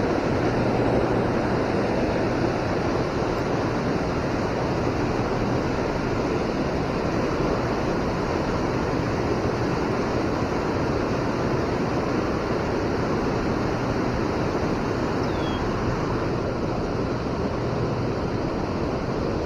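Steady rush of river current flowing over a shallow, rocky stretch, an even unbroken wash of water noise.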